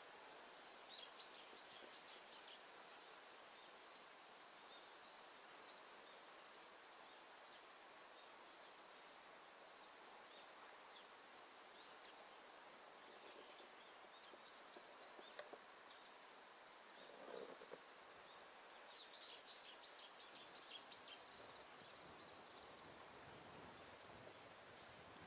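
Faint outdoor ambience: a steady soft hiss with a thin, steady high tone, and quick runs of high, distant bird chirps about a second in and again about three-quarters of the way through.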